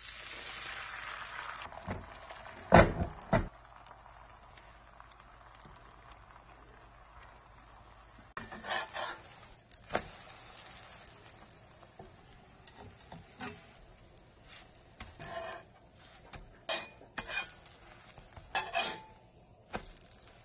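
Beaten eggs sizzling in butter in a cast-iron skillet, the sizzle louder for the first couple of seconds after the egg goes in. A metal spatula knocks and scrapes against the pan at intervals as the egg is worked.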